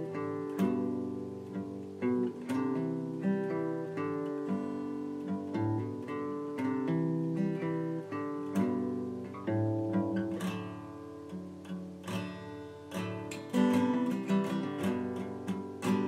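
Outro music: acoustic guitar plucking and strumming a gentle tune.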